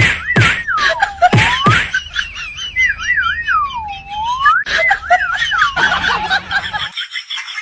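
A whistled tune repeating the same phrase: a quick warble followed by a long swoop down and back up, with a few sharp percussive hits in the first two seconds. It stops abruptly near the end.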